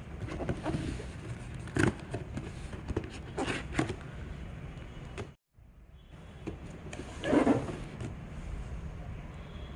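Handling noises from unboxing a small kitchen appliance: a few short knocks and rustles of parts and packaging being moved, over a steady low background hum. The sound cuts out completely for a moment a little past halfway.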